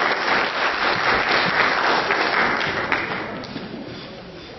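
Audience applauding, dying away from about three seconds in.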